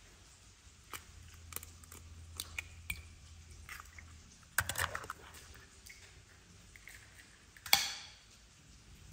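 Eggs being cracked on a glass mixing bowl: scattered sharp taps and clicks of shell, with a louder cluster of cracking about halfway through. Near the end comes a single sharp clink with brief ringing, the loudest sound.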